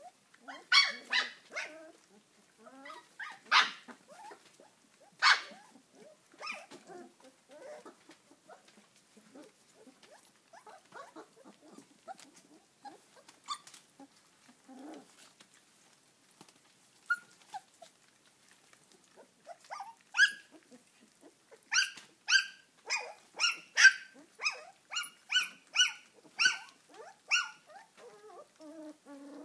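Puppies yipping in short, high-pitched yelps. There is a cluster of yips in the first few seconds, then a quieter stretch, then a quick run of about a dozen yips, roughly two a second, in the second half.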